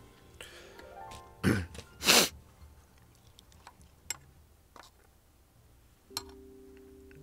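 A man clears his throat with two short coughs about a second and a half in, over quiet background music. A few light clinks of a metal spoon against an open tuna can follow.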